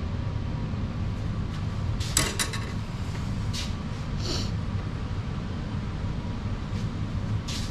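Light metallic clinks and a short rattle of steel tubing knocking against a hand tube bender clamped in a vise as the bent piece is handled and repositioned: a cluster about two seconds in, then single clinks and one brief ring. A steady low shop hum runs underneath.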